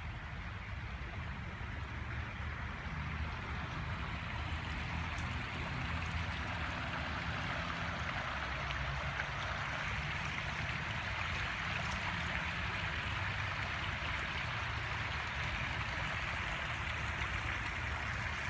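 Floodwater runoff flowing in a steady rush, growing slightly louder, with a low rumble underneath.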